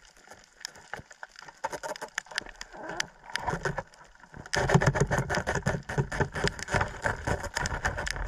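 Underwater sound on a rocky reef, heard through a submerged camera: a constant crackle of sharp clicks, which grows louder and denser with a low rushing of water from about halfway through.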